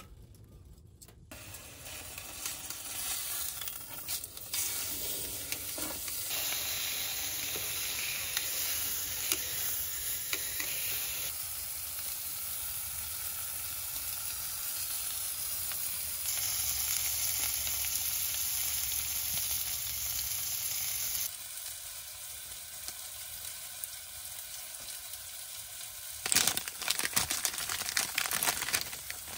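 Meat sizzling as it grills over a tabletop wood stove, a steady frying hiss whose loudness shifts in steps every few seconds, with louder crackling and spitting near the end.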